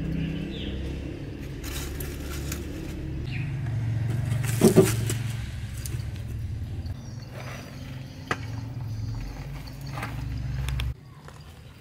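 Firewood logs being placed by hand into a rusty steel wood-burning stove, knocking and scraping against the metal, with the loudest knock, ringing briefly, about five seconds in. Underneath runs a steady low rumble that stops abruptly near the end.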